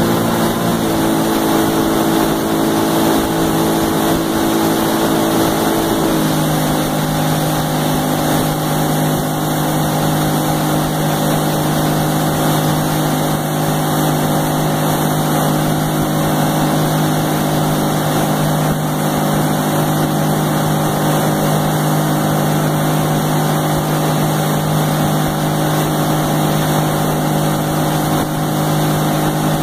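Motorboat engine running steadily while towing two kneeboarders, its note stepping lower about six seconds in, over the constant hiss of the churning wake and wind.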